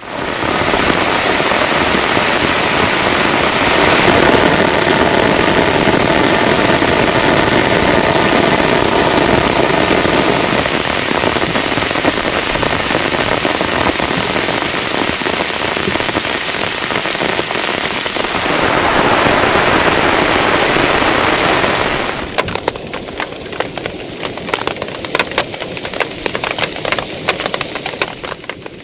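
Heavy rain pouring down in a dense, steady hiss. About 22 seconds in it drops to a lighter patter of separate drops striking a surface close by.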